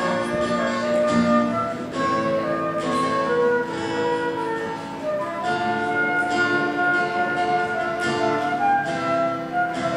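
Instrumental music with no singing: a flute-like melody of held notes over plucked guitar, part of a Turkish song being played by a small ensemble.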